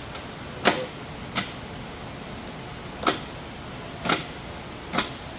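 MGW short-throw shifter being worked through the gear positions: five sharp metallic clicks as the lever drops into the gates, irregularly spaced about a second apart.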